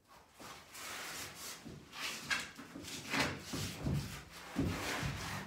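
Rustling, shuffling and knocking of someone moving about close to the microphone and handling a fabric puppet, with a few dull thumps in the second half.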